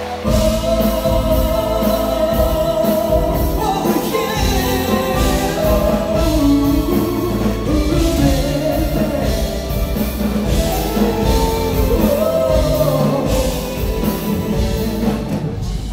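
Live pop ballad concert: a full band with drum kit plays and a vocalist sings, heard from the audience seats of a large hall. The band comes in with a sudden jump in loudness right at the start.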